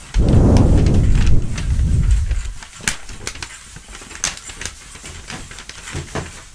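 Homemade foley storm effect: breath blown into the microphone gives a loud low rumble for about two seconds, then shaken video tape and paper give scattered crackles and rustles.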